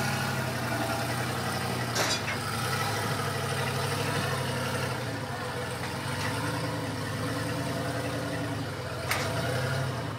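Car-hauler semi truck's diesel engine running steadily at low speed as the loaded rig pulls slowly away. Two brief sharp sounds stand out, about seven seconds apart.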